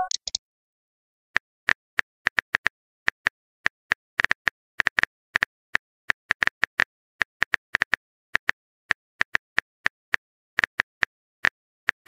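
Smartphone on-screen keyboard key-click sounds: one short tap for each letter typed, starting about a second in and going on at an uneven pace of about three or four taps a second.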